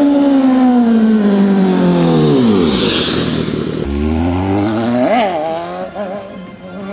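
Kawasaki Z900 inline-four motorcycle engine. Its note drops steadily in pitch over the first three seconds, then after a break it runs again with one quick rev blip about five seconds in, fading toward the end.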